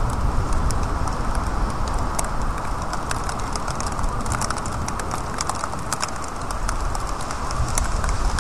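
Steady rain falling, with close drops ticking irregularly on a nearby surface over a low steady rumble.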